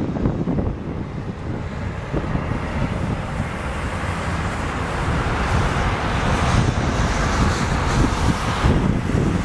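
Twin-engine jet airliner climbing away after takeoff: steady jet engine noise that grows louder and brighter about halfway through, with wind buffeting the microphone.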